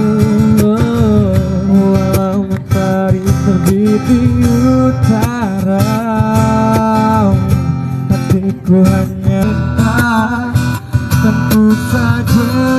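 Acoustic guitar music: strummed guitar under a melody line that bends in pitch.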